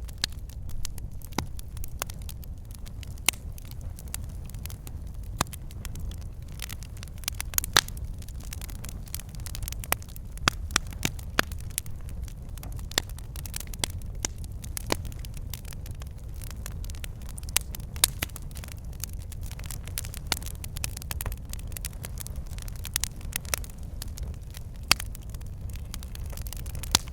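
Wood fire in a fireplace, the logs crackling with frequent sharp pops over a steady low rumble of the flames.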